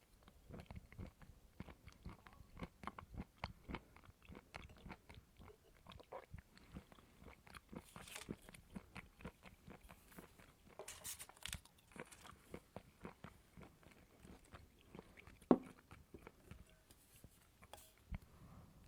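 Close-up chewing and biting of coconut: a fast, irregular run of small crunchy, squeaky clicks from the mouth, with one sharper, louder bite near the end.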